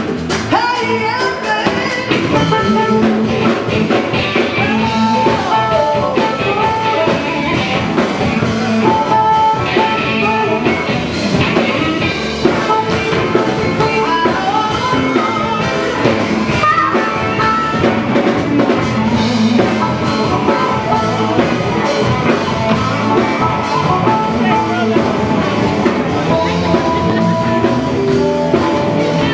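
A live rock band jamming: electric guitar over a drum kit, with sustained, bending lead notes.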